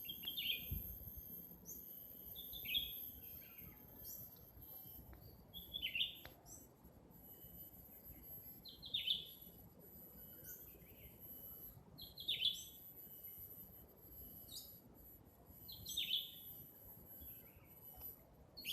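A hijau sami bird repeating a short falling call about every three seconds, over a steady high-pitched drone of insects. A soft low thump about a second in.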